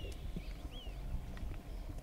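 Cape buffalo herd milling, with scattered knocks and low rumbling, while a bird repeats a short downward-slurred whistle twice.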